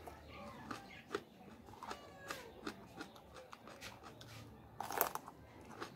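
Close-up chewing of a raw green bell pepper: wet crunching and mouth clicks, with a louder crunch about five seconds in.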